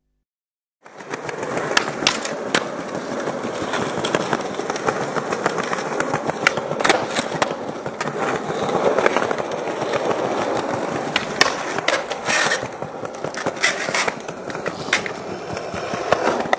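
Skateboard wheels rolling on concrete, a steady rumble that starts about a second in, broken by several sharp clacks of the board.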